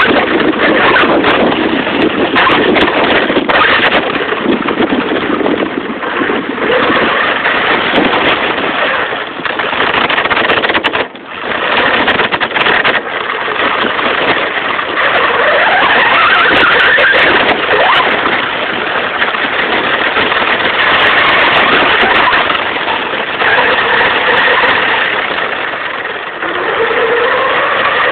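Redcat Vortex radio-controlled truck running over rough ground, its motor note rising and falling with the throttle, with a brief lull about eleven seconds in.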